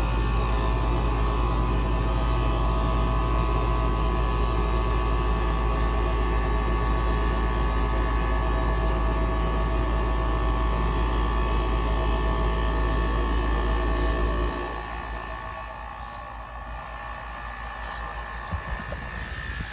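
Outdoor condensing unit of a 2023 TGM 4-ton central air conditioner with an LG scroll compressor, running: a steady, loud hum with several steady tones over fan noise. About fourteen seconds in, the sound drops sharply and a quieter, rougher low rumble remains.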